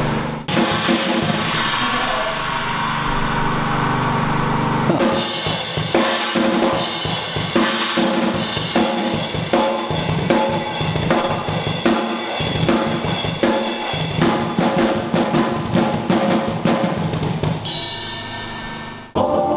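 Acoustic drum kit played hard: kick, snare and cymbal hits, with music underneath. It starts as a dense wash, and the separate strikes come through in a steady beat from about five seconds in. It drops away and cuts off just before the end.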